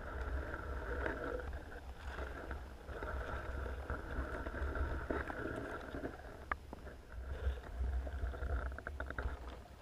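Muffled underwater noise picked up by a GoPro sealed in its waterproof housing: a steady low rumble with swelling rubbing and hissing as the camera moves among water weeds, and a few sharp clicks in the second half.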